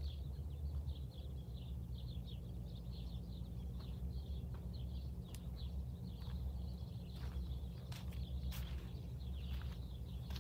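Birds chirping in quick, irregular short calls over a steady low rumble, with a few faint clicks.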